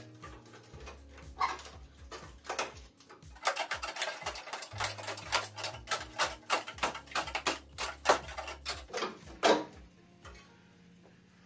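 Rusted-through steel floor pan of a Triumph Spitfire crackling and crunching as it is torn away by hand, in quick runs of sharp snaps with one louder crack near the end. Background music with a low bass line plays underneath.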